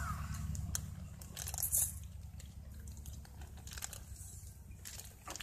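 Close-up eating sounds: a plastic drink bag and a paper wrapper crinkling at the mouth, with scattered crunching and chewing clicks and one louder crackle about a second and a half in, over a low steady hum.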